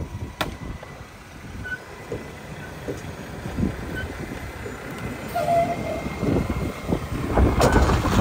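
Mack MRU rear-loader garbage truck's engine running with a low rumble and a few knocks, then growing much louder from about seven seconds in as the truck pulls up close.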